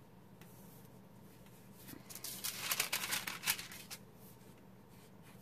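Colored pencil scratching across tracing paper in a quick flurry of short sketching strokes, lasting about two seconds midway.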